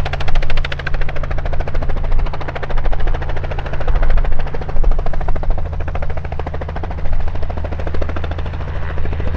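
Robinson R44 Raven II helicopter hovering low. Its six-cylinder Lycoming piston engine and two-bladed main rotor make a steady low drone with a rapid pulsing beat running through it.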